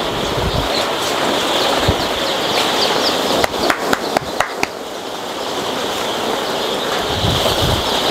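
A large flock of young layer chicks peeping continuously, with a few sharp clicks and knocks about halfway through.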